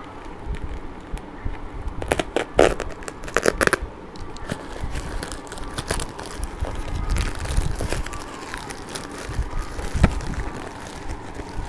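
Plastic courier mailer bag crinkling and tearing as it is slit with a small utility blade and pulled open, loudest in a run of sharp crackles about two to four seconds in, then scattered rustling as the bag is handled and the contents pulled out.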